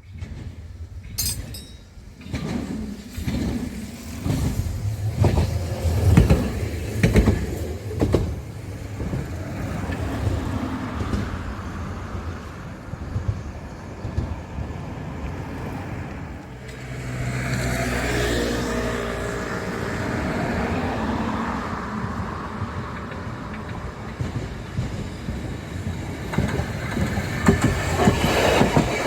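A rail vehicle running past on the track, its wheels knocking sharply over the rail joints in the first several seconds under a steady low rumble. Later a pitched whine rises and shifts for a few seconds.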